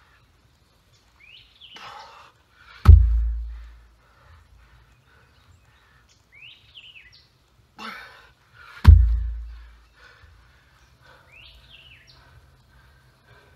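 Heavy stone dropped onto the forest floor twice, about six seconds apart, each time a deep thud just after a short hard exhale. A bird chirps between the drops.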